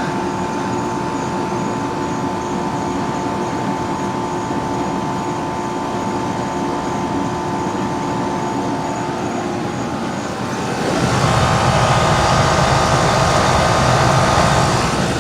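Rheem 3-ton central air outdoor unit running in heat mode: its Copeland scroll compressor and condenser fan make a steady hum with a few steady tones. About eleven seconds in, a louder rushing sound swells up and lasts about four seconds.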